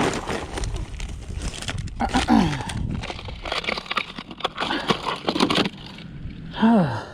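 Wind rumbling on the microphone, with rustling and clicking handling noise and two short vocal grunts.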